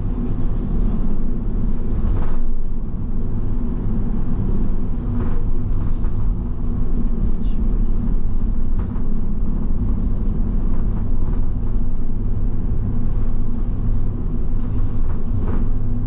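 Steady low drone of engine and road noise heard inside a moving road vehicle, with a few light knocks or rattles scattered through it.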